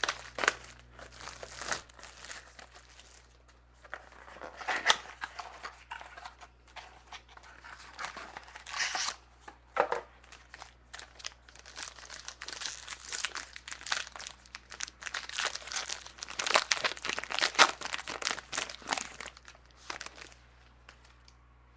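A sealed mini box of trading cards being torn open: wrapping tearing and crinkling in irregular rustling bursts, with cards and cardboard handled. The rustling dies away shortly before the end.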